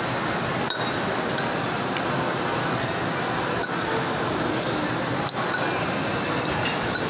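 A metal spoon clinking and scraping against a bowl while eating, several short sharp clinks at irregular intervals, over a steady background din.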